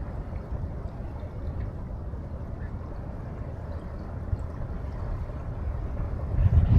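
Wind rumbling on the microphone over the wash of river water, a low steady noise that gusts louder near the end.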